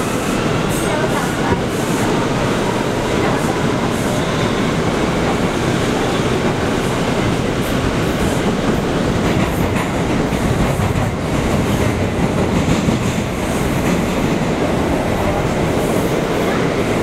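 Bombardier R179 subway car running between stations, heard from inside the car: a steady, loud rumble of wheels on the rails.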